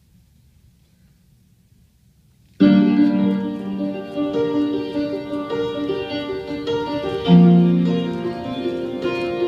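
Slow instrumental music played over the studio's loudspeakers starts suddenly about two and a half seconds in, after near silence, with long held notes changing every second or so.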